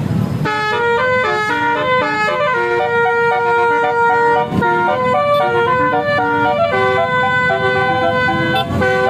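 Bus 'telolet' horn, a Basuri multi-tone air horn, playing a melody of held notes that change pitch every fraction of a second. It starts about half a second in and keeps playing.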